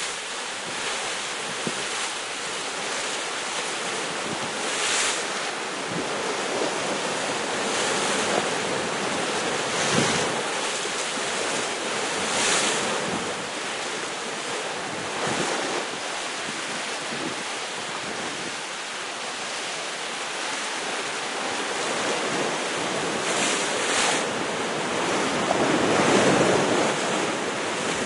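Sea waves breaking against the rocks at the foot of a cliff, a steady wash of surf that swells every few seconds, louder near the end, with wind on the microphone.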